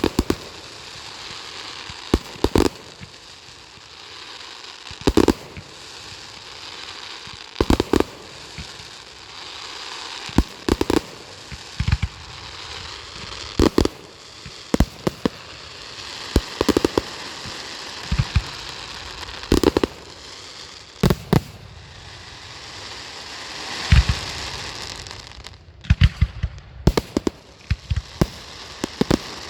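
Fireworks display: shells bursting in sharp bangs every second or two, with a steady crackling hiss between them and a quick run of bangs near the end.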